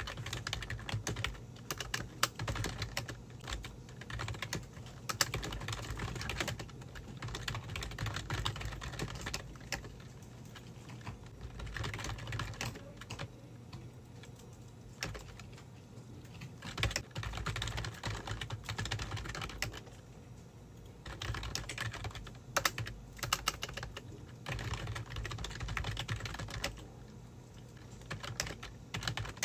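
Typing on a computer keyboard: fast runs of key clicks broken by short pauses, over a low steady hum.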